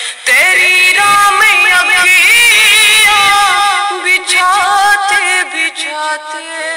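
A boy's voice singing a naat in long, wavering melismatic runs without clear words, starting suddenly just after the start and softening after about four seconds.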